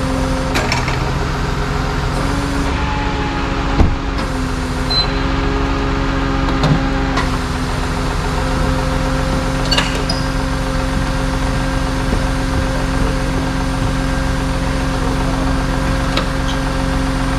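A vehicle engine idling steadily with an even hum, with a few short knocks and clunks over it, the loudest a single thump about four seconds in.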